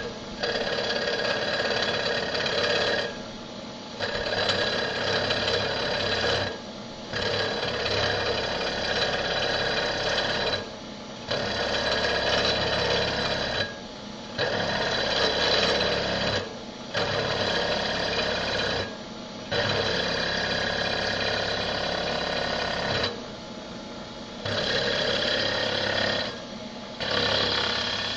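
Comet 3KVHD knee mill cutting into a wheel in about nine passes. Each cut lasts two to four seconds, with short lulls between while the machine keeps running.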